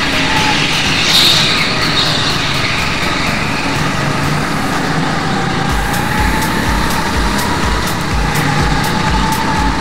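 Indoor racing go-kart running at speed, its motor note rising and falling through the corners, with wind and track noise on the onboard camera. Background music with a steady beat comes in about six seconds in.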